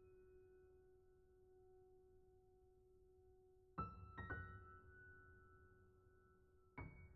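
Quiet, sparse piano music. A held chord rings and slowly fades, then a few notes are struck about four seconds in and another near the end, each left to ring out.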